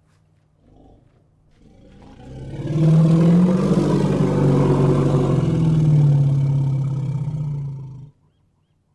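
Elephant giving one long, low roar that swells in about two seconds in, holds for some five seconds and cuts off abruptly near the end.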